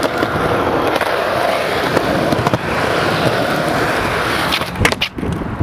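Stunt scooter wheels rolling on rough concrete, a steady grinding rumble. A few sharp clacks come from the wheels and deck striking the ground, loudest as a pair near the end.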